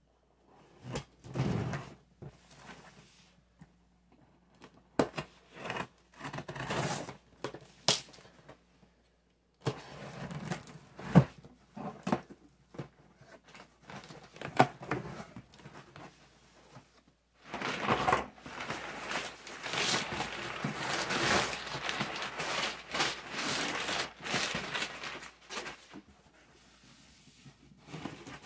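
A cardboard shipping box being opened by hand: scattered knocks and thunks on the cardboard with tape tearing as the flaps are pulled open, then a long stretch of rustling and crinkling from about halfway in as the contents are dug out, fading down near the end.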